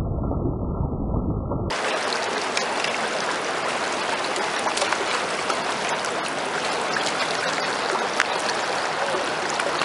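A muffled low rumble for about the first second and a half, then the rushing of a fast river current around wading legs, steady, with scattered small splashes and ticks.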